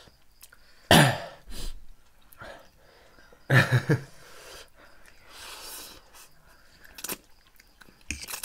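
A person coughing from the burn of spicy noodles: one loud cough about a second in and a smaller one just after, then a quick run of three coughs about three and a half seconds in, with a couple of shorter coughs near the end.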